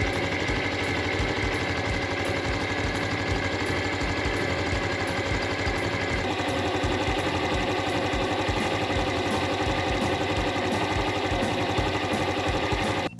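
Honda Super Cub 110's small air-cooled single-cylinder four-stroke engine idling steadily with an even low putter.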